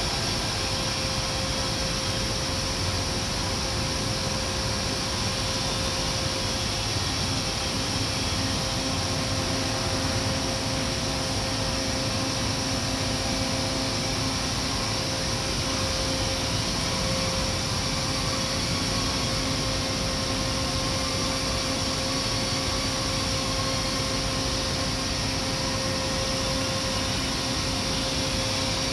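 Steady machinery hum and rushing air noise of a factory floor, with a constant whine held at one pitch and a lower tone joining about eight seconds in.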